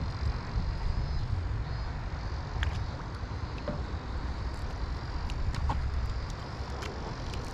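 Wind buffeting the microphone over open water: a steady, uneven low rumble, with a few faint short ticks.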